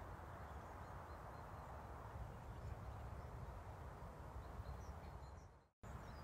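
Steady outdoor wind noise with faint, scattered bird chirps; the sound cuts out for a split second near the end.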